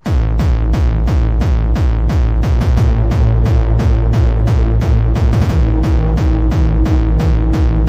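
Hard techno track starting abruptly: a fast, even kick drum whose pitch drops on each hit, about four a second, over a steady droning bass.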